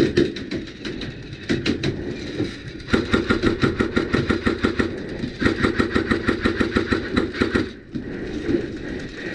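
Airsoft electric rifle firing two long full-auto bursts of rapid, even shots. There are a few scattered clicks and knocks before the first burst, which starts about three seconds in.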